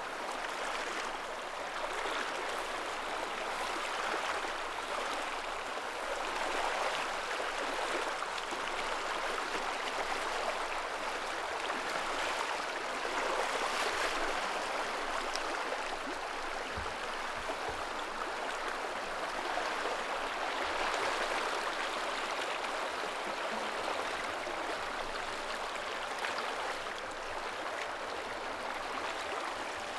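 Shallow, rocky stream flowing over riffles: a steady rush of water.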